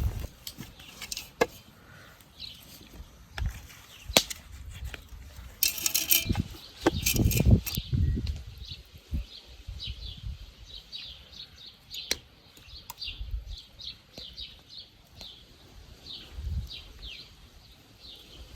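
Scattered knocks and clatter of handling, with a short rustle about six seconds in and a few dull thumps just after it. Small birds chirp repeatedly through the second half.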